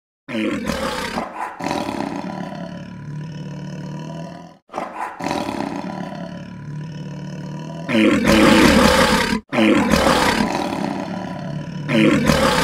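Loud animal roar sound effects standing in for a dinosaur: three long roars, each about four seconds, one after another. The loudest is about two-thirds of the way through.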